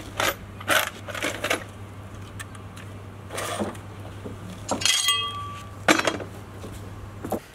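Hand tools clinking and knocking as they are picked up off concrete and packed into a tool bag: a string of separate sharp clinks and clunks, with one short ringing metallic note just after the middle.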